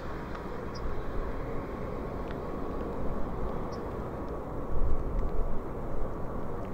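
Distant jet rumble of an Airbus A380's four Rolls-Royce Trent 900 engines at takeoff power during the takeoff roll, a steady rushing noise. It swells into a louder, gusty low rumble about five seconds in.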